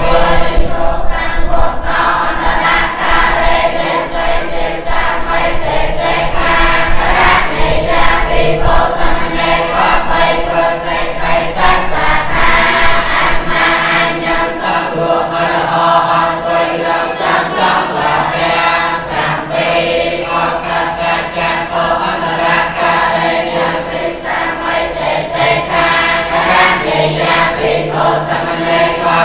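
Buddhist monks chanting together in unison, a continuous group chant.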